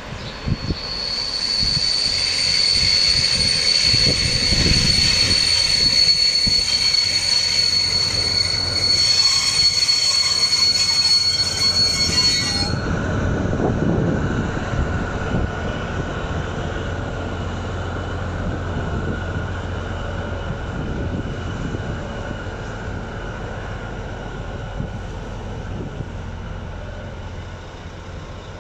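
Steady high-pitched brake squeal from the n-Wagen passenger coaches as the train brakes, cutting off suddenly about 13 seconds in. After it, the class 218 diesel-hydraulic locomotive's engine runs on with a low hum that slowly fades.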